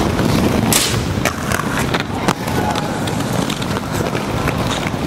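Inline skate wheels rolling over rough concrete in a steady low rumble, with scattered clicks and knocks and a brief scrape less than a second in.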